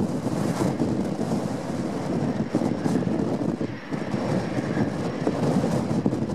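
Twin jet engines of a Boeing 777-200ER climbing out after takeoff: a steady, deep, crackling rumble that stays loud throughout.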